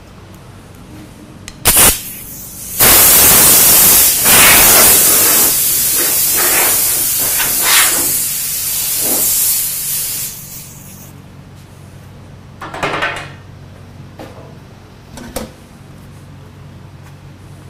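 Compressed-air blow gun blasting loose chalk dust off the steel hatch parts: a short blast about two seconds in, a long hissing blast of several seconds, then two brief puffs near the end.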